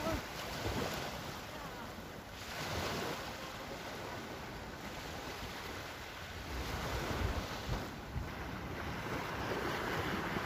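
Surf washing onto the beach, swelling and easing, with wind buffeting the microphone.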